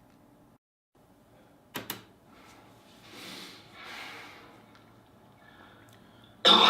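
A person's breathing and coughing. Two quick clicks, then two breathy swells of breath, then near the end a sudden loud cough bursts out.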